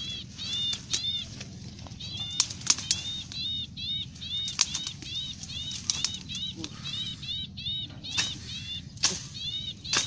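Leafy branches rustling, with several sharp twig snaps, as someone pushes through a dense shrub thicket. A small bird chirps over it in short, quick arched notes, in twos and threes.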